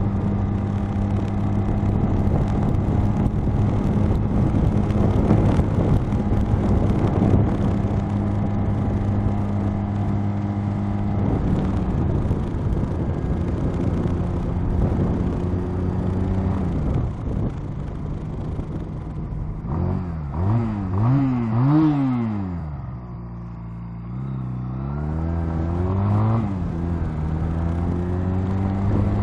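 Honda Rebel motorcycle engine cruising steadily under the rush of wind and rain, with a pitch drop about eleven seconds in. Past the halfway point the engine slows, blips up and down a few times, settles briefly to a quieter idle, then rises again as the bike pulls away.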